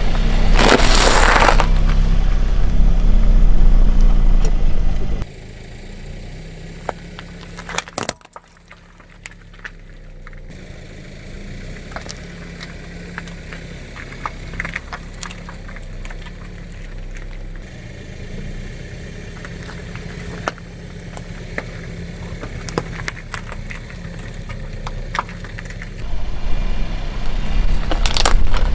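Car engine running loud and steady as the car rolls over objects, with a noisy crunch about a second in. Then a quieter stretch of scattered cracks and crackles as things break under the tyre, before the engine comes up loud again near the end with a sharp crack.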